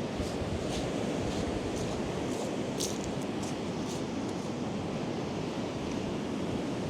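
Choppy sea surf breaking on the beach at high tide, mixed with strong wind buffeting the microphone in a steady low rumble. A few short crisp ticks sound up high in the first few seconds.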